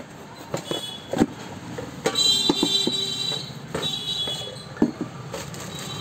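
Stainless steel mixer-grinder jars and a cardboard box being handled: several sharp knocks and clinks, with high ringing tones after some of them.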